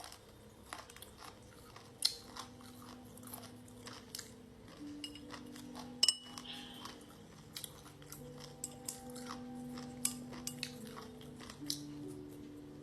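Close-up crunchy chewing and biting of pickled food (salt-pickled chicken feet and crisp rau tiến vua vegetable), with many short sharp crunches spread irregularly, the loudest about two, six and ten seconds in.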